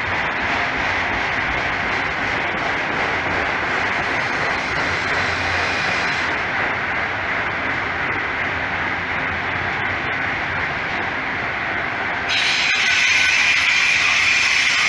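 Autorack freight cars rolling slowly past on steel wheels, a steady rolling rumble and hiss with a high steady tone over it. About twelve seconds in, the sound grows louder and brighter.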